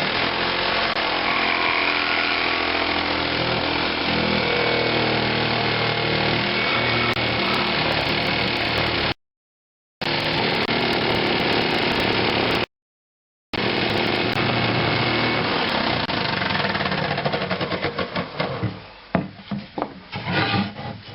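Electric power saw running steadily as it cuts a soundhole out of a wooden guitar body, broken twice by short silences. Near the end the motor stops and gives way to scattered knocks and handling of the wood.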